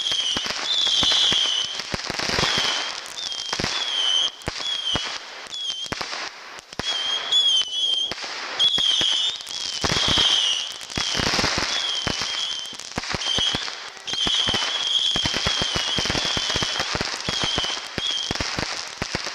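Consumer fireworks going off in quick succession: a dense run of bangs and crackling, with warbling high-pitched whistles recurring throughout.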